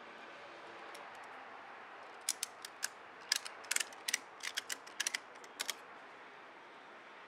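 Ratchet strap buckle being cranked: a dozen or more sharp metal clicks in quick, uneven bursts, starting about two seconds in and stopping near six, as the pawl snaps over the gear teeth and cinches the strap down on the load.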